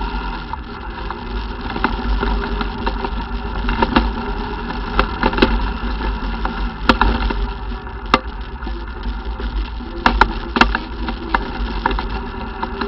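ATV engine running steadily under way, with a constant low rumble and frequent sharp knocks and clacks scattered through it, several loud ones about four, seven and ten seconds in.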